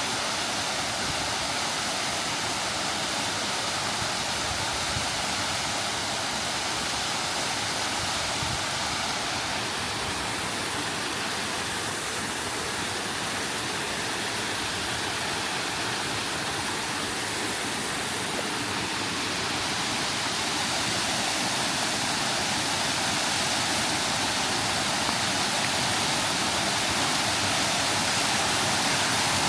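Waterfall pouring down shale rock walls: a steady rushing of falling water, a little louder near the end.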